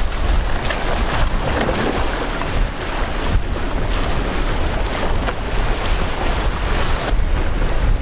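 Wind buffeting the microphone in a heavy, uneven rumble, over the steady wash of waves against the jetty.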